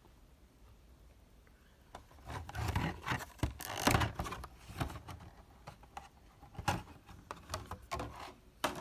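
Packaged Hot Wheels cars in cardboard-and-plastic blister cards being handled and set out on a table: irregular rustling, rubbing and scraping starting about two seconds in, with a short knock near the end.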